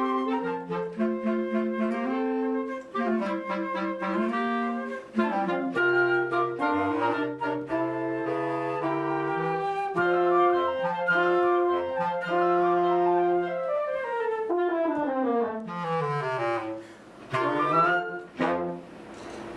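A Marine Corps concert band of brass and woodwinds plays a holiday arrangement: held chords over moving low brass lines, with a long descending run a few seconds before the end.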